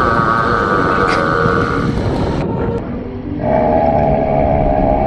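Two long, loud, drawn-out burps from a man: the first is held until about two seconds in, and the second, lower one starts about a second later and is still going at the end.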